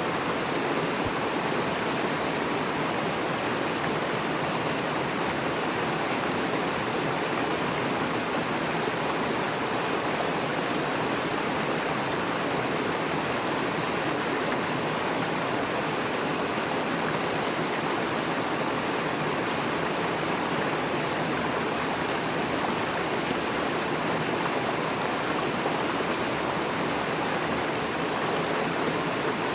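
Swift river water rushing and splashing over rocks, a steady, unbroken rush.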